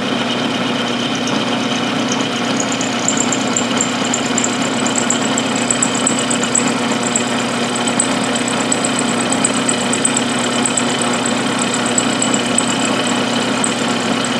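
Milling machine running with an end mill side-cutting one of the hex flats on a metal part held in a collet block. It is a steady machine hum, joined about two seconds in by a thin, high whine from the cut that holds to the end.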